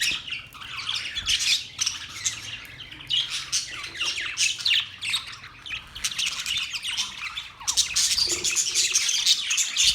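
Birds chirping in quick, overlapping calls, the chatter growing denser near the end.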